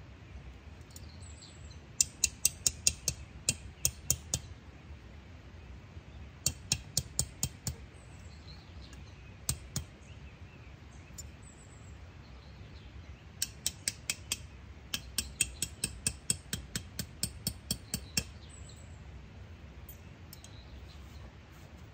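Tent stakes being hammered into the ground: runs of sharp strikes at about three to four a second, the longest run near the end, with pauses between. Faint bird chirps now and then behind them.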